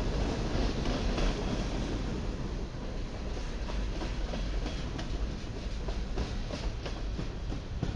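Freight train cars rolling past at speed, empty centerbeam flatcars among them: a steady rumble of steel wheels on rail, with sharp clicks and clanks as the wheels cross rail joints, more often in the second half.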